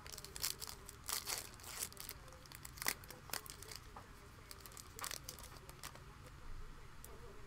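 Foil wrapper of a 2020 Panini Playbook football card pack crinkling and tearing as it is ripped open by hand. There is a run of sharp crackles over the first few seconds and another burst about five seconds in.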